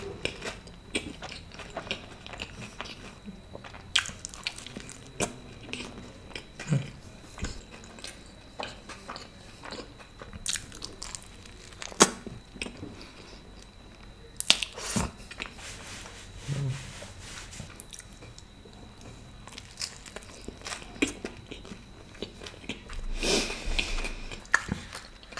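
Close-miked chewing and biting of a pizza slice with a crunchy base: irregular crunches, sharp mouth clicks and wet smacks. A short breathy rush comes near the end.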